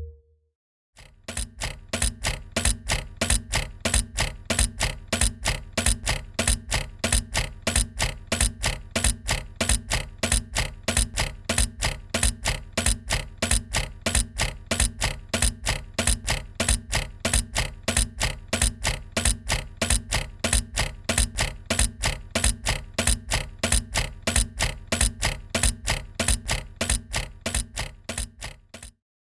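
Heavy machinery running with a steady rhythmic mechanical clatter, about three sharp knocks a second over a low hum. It starts about a second in and stops just before the end.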